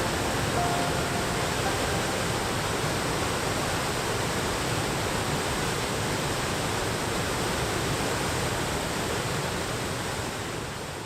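Steady rushing roar of a river waterfall or rapids, even and unbroken, fading down near the end.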